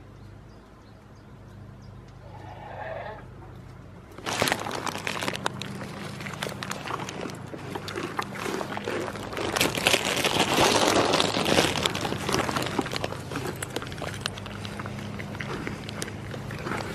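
A goat bleats once, briefly, about two seconds in. Then, from about four seconds in, goats crunch animal crackers right at the microphone: steady close chewing, crunching and rustling with many small crackles.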